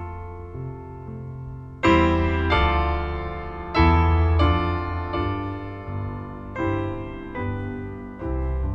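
Piano music: chords struck every second or so and left to ring out, with the strongest chords about two seconds and four seconds in.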